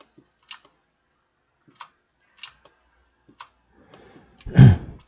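Sparse, sharp clicks of a computer mouse and keyboard, about six over three and a half seconds. Near the end comes a louder, short breathy thud.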